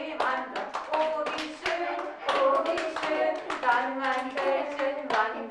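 A group of young children singing a song together while clapping their hands along to it.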